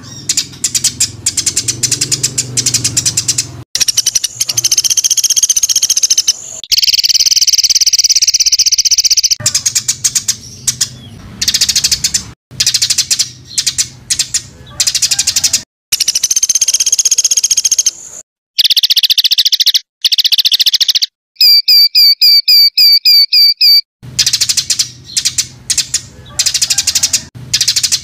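Songbird song in the rapid 'tembakan' style: dense, very fast strings of sharp repeated chirps, cut off and restarting abruptly several times. About two-thirds of the way through comes a run of about ten loud, evenly spaced notes, each sliding downward.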